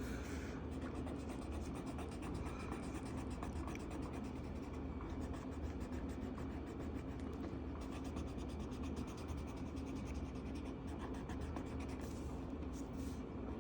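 Marker tip scratching on paper in quick, steady back-and-forth colouring strokes.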